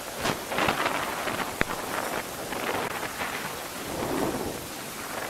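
Storm at sea heard from a lifeboat's open deck: gale-force wind and breaking waves with spray, a rushing noise that swells and falls in irregular surges. A single sharp click sounds about a second and a half in.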